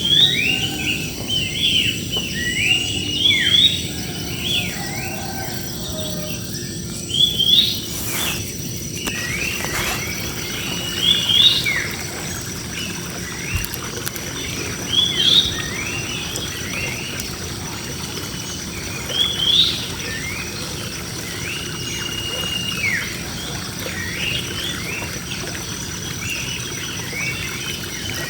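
Many birds chirping and calling together in a large tree: short overlapping chirps that sweep up and down, with a louder call every few seconds, over a steady high-pitched hum.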